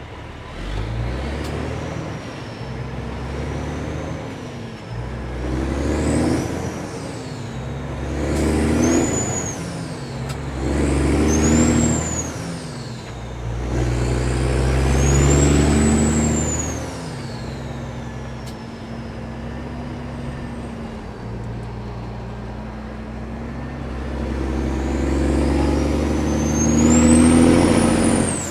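Kenworth W900 diesel truck with loud exhaust pipes pulling under load and working up through the gears: the engine note swells and drops several times as it shifts, and a high turbo whistle rises and falls with each pull.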